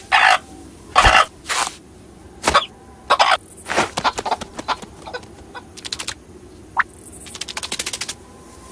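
Cartoon sound effects: a string of short, loud cough-like squawks from an animated character, followed by a quick rattle of clicks near the end.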